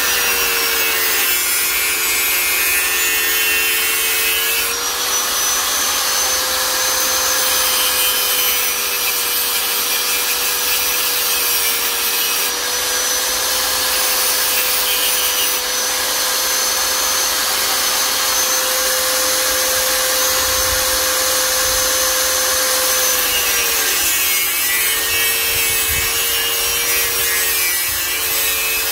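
An electric power tool's motor runs steadily with a hissing, abrasive cutting or grinding noise. Its pitch sags briefly twice near the end, as if the tool is loaded against the work.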